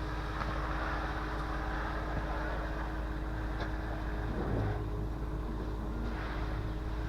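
An engine running steadily with a low, even hum, typical of the machinery at a concrete pour.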